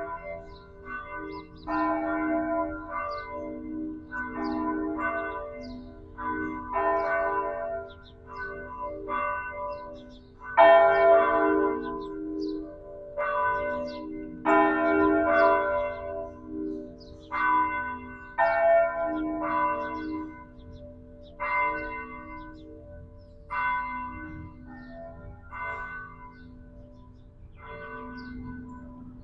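Church bells of the Metropolitan Cathedral of Belém ringing, struck in quick clusters with each note ringing on. They are loudest about ten seconds in and grow sparser and fainter in the last third.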